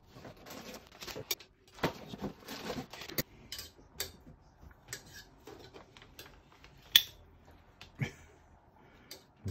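Kitchen handling sounds: a zip-top plastic bag crinkling and plastic tongs clicking and knocking against a stainless steel pot while pieces of boiled ham are lifted out of the broth. A run of irregular clicks and rustles, with one sharp click about seven seconds in.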